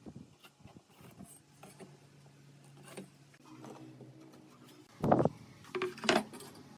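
Pieces of wood being handled and knocked together, with scattered light taps and a few louder knocks about five and six seconds in, over a faint steady hum.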